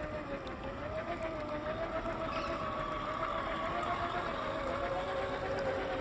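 Electric drive motors and gearboxes of Traxxas TRX-6 RC scale trucks whining as they crawl through a shallow creek. The whine wavers gently in pitch with the throttle, over the rush of the wading water.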